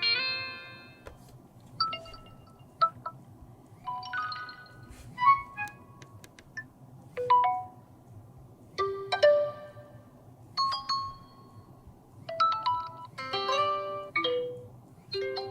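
Honor 50 smartphone notification tones played one after another: a run of short electronic chimes, each a quick phrase of a few clear notes, separated by brief pauses.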